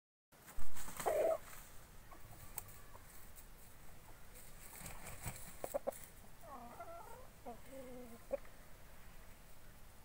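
Aseel chickens clucking in short calls, once about a second in and several times in the second half. A sudden dull bump about half a second in is the loudest sound, and a few light clicks come in between.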